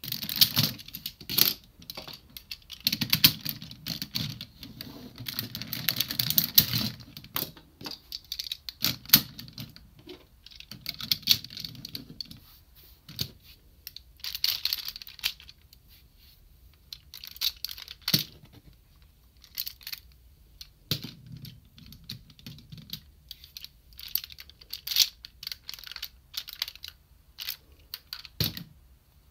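Hard plastic toy robot parts being handled and fitted together: repeated sharp clicks and clattering, with stretches of plastic rubbing and rustling in between.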